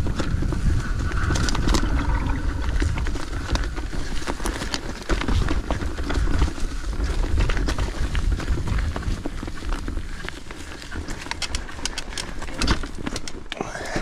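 Mountain bike riding down a rocky, leaf-covered trail: a steady low rumble of tyres over dirt and leaves, with frequent clattering clicks and knocks as the bike rattles over rocks and roots.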